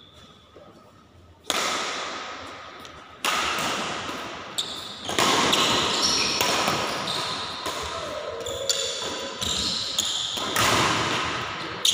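Badminton rackets striking a shuttlecock in a rally, sharp hits every second or two, each echoing and fading in a large hall.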